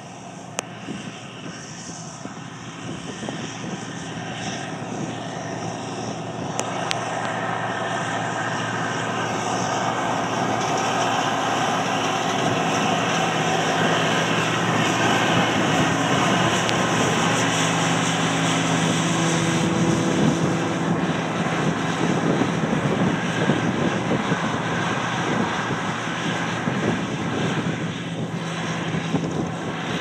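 John Deere combine harvester running while cutting wheat: a steady drone of its engine and threshing machinery that grows louder as it approaches, is loudest as it passes close by about halfway through, and then slowly fades as it moves away.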